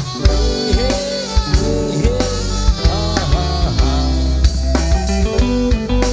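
Dangdut-style band music: a steady bass line and drum hits under a melody of sliding, bending notes, with keyboard chords.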